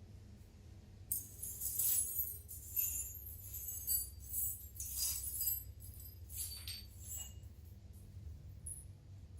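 Small metal parts clinking and jingling against each other in a quick, irregular run that tails off, over a steady low hum.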